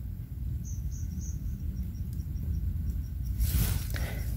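An insect chirping: a short high note repeated about three or four times a second, fading away, over a low outdoor rumble. A brief rustle comes near the end.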